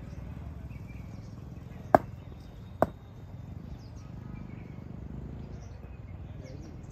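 Two sharp knocks of a cricket bat, a little under a second apart, over a steady low background rumble.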